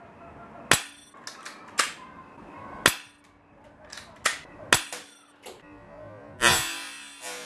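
Airsoft pistol shooting .20 BBs at a utility razor blade clamped in a vise: about eight sharp snaps of shots and BB impacts at irregular intervals, then a louder, longer rattling crash about six and a half seconds in.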